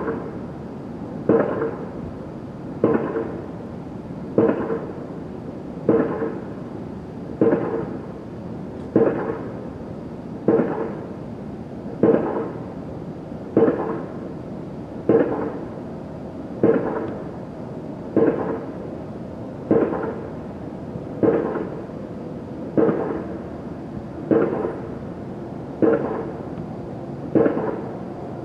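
An unidentified racket: a sharp, pitched sound repeating very regularly, about once every one and a half seconds, each one ringing briefly before it fades.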